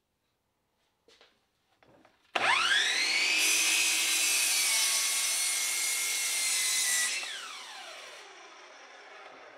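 Hitachi sliding compound miter saw started after a couple of faint clicks, its motor whine rising to speed, then the blade cutting through a wooden board for about three and a half seconds. After the cut the trigger is released and the motor winds down with a long falling whine.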